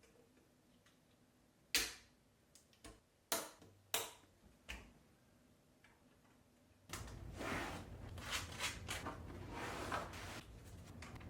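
Hands handling computer parts during a PC build: about five sharp clicks and knocks of hard plastic and metal, then, about seven seconds in, a steady stretch of rustling and scraping dotted with small clicks.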